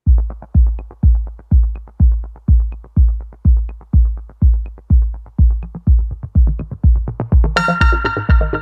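Electronic dance track opening on a steady drum-machine kick, about two beats a second, joined near the end by synth chords and a bass line.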